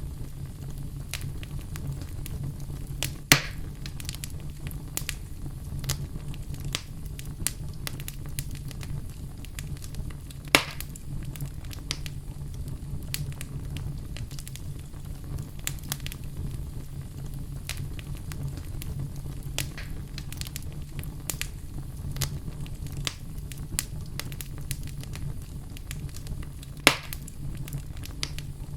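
Fireplace fire crackling: frequent small clicks over a low steady rumble, with three loud sharp pops, about three seconds in, ten seconds in and near the end.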